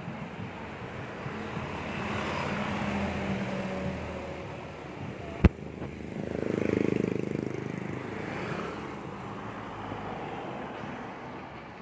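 Road traffic and a vehicle engine running steadily as the camera moves along a street. A single sharp click comes about five and a half seconds in, and a vehicle passes close by around seven seconds, swelling and fading.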